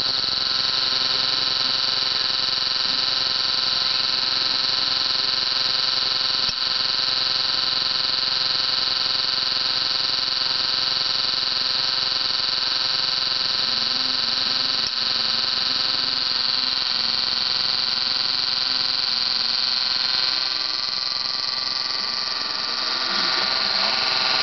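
Steady high-pitched electronic whine from a homemade coil-discharge rig, most likely its high-voltage charging circuit. It cuts out very briefly twice, about six and a half seconds in and again about fifteen seconds in.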